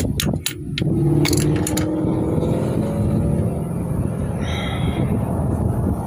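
A few sharp clicks and knocks, then a steady low rumble with an engine-like hum, like a vehicle running close by.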